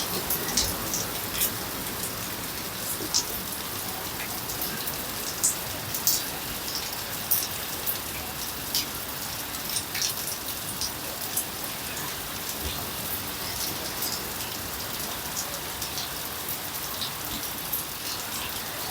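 Heavy rain falling in a steady hiss, with scattered sharp taps of individual drops.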